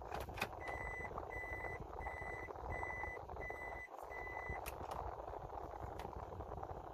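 A car's reverse-gear warning beeper sounding inside the cabin: six even, high beeps about two-thirds of a second apart. It stops near the end with a sharp click, as the shifter is taken out of reverse.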